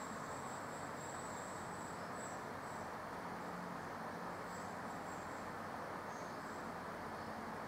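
Steady background hiss, with a faint high chirping near the top of hearing that comes and goes.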